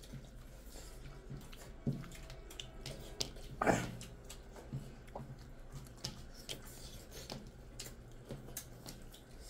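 Two people eating rice and curry by hand: soft wet squishing of fingers mixing rice on the plates, chewing and lip smacks, with scattered small clicks and one louder one a little under four seconds in.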